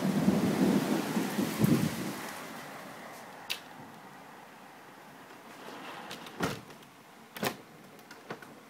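A roll of thunder rumbling and dying away over the first two seconds, leaving the steady hiss of rain. A few sharp clicks come later, the loudest two near the end.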